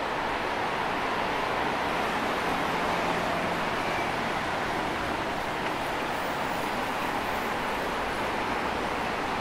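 Steady city road traffic noise, an even wash of sound with no single passing vehicle standing out.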